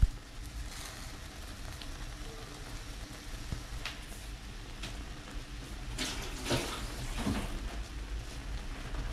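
Curry laksa broth boiling hard in a stainless-steel pot, a steady bubbling over a low hum, with a few soft pops scattered through it. A single short click right at the start.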